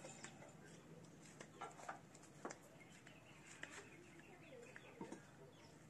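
Faint, scattered clicks and clinks of hand tools working on a motorcycle engine, with chickens clucking faintly in the background.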